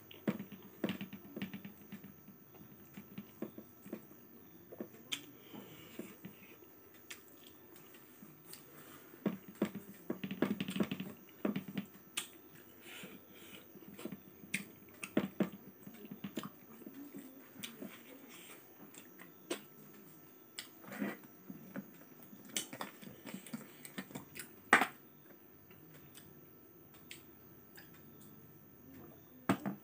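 Close-up eating sounds: chewing and lip-smacking, with many short wet clicks from the mouth and from fingers working rice.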